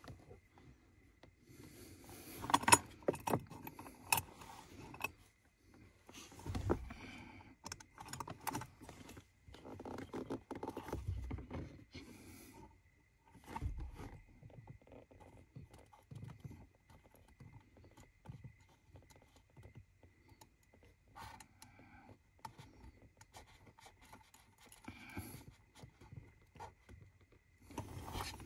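Small metal clinks and scraping of washers, nuts and a wrench being worked onto the pedal bracket bolts, in irregular bursts with quiet gaps between, mixed with rustling of hair brushing against the microphone.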